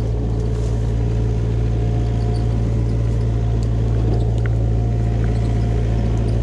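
An engine running steadily at an even speed, a low drone with a few faint clicks.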